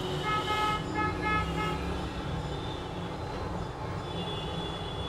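A vehicle horn honks in about three quick toots in the first two seconds, over a steady low traffic rumble.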